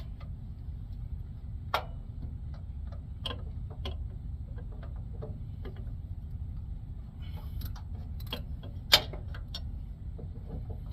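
Metal tool clicks and clinks, irregular and a few louder than the rest, as a wrench tightens the upper adjusting bolt of a truck APU's belt tensioner, over a steady low rumble.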